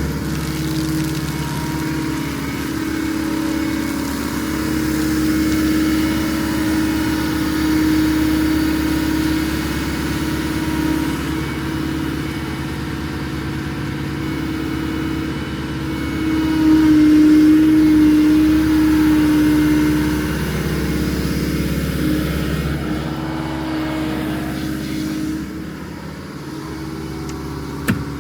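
Engine running steadily, louder for a few seconds about two-thirds of the way through, then settling back. A single short knock comes just before the end.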